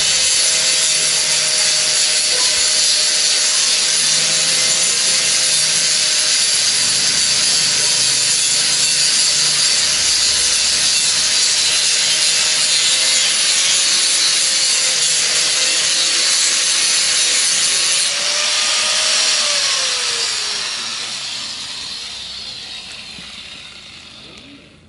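Handheld angle grinder grinding a steel plate: a loud, steady hiss of the disc on metal over the motor's whine. About eighteen seconds in it comes off the work and the motor winds down, falling in pitch and fading out.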